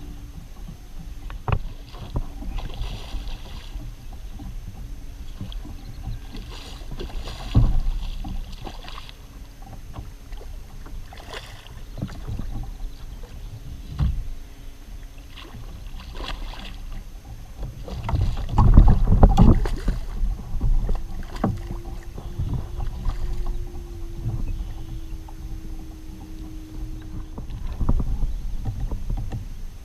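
Water and wind sounds around a plastic fishing kayak, with repeated knocks and splashes as a small redfish is played and lifted aboard. The loudest stretch of thumps and rumble comes just past the middle.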